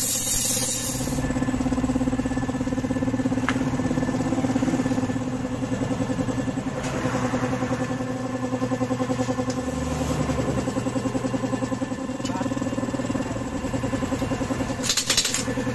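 A small engine idling steadily with an even pulse, with a few sharp metallic clicks near the end.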